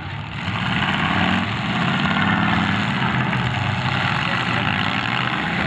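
Several demolition derby car engines running and revving hard together in a loud, steady roar, their pitch rising and falling as the cars push against each other with wheels spinning.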